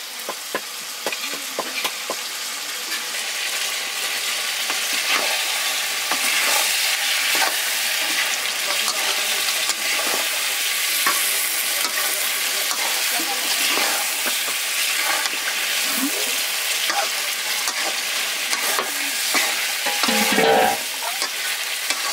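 Chicken pieces sizzling in hot oil in an iron wok, stirred with a wooden spatula that scrapes and knocks against the pan over and over. A short pitched sound near the end.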